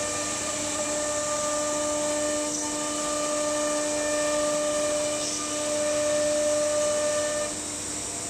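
Automatic nesting CNC router running: the spindle gives a steady whine of several tones over a hiss of air and dust extraction. Some of the tones drop out and come back, and the sound eases a little near the end.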